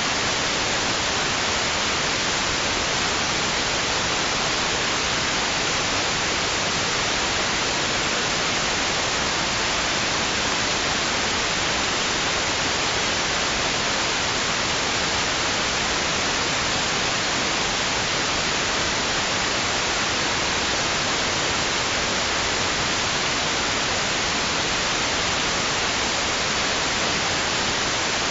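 Steady white noise: an even, unchanging hiss, brightest in the upper range, with no swells or breaks.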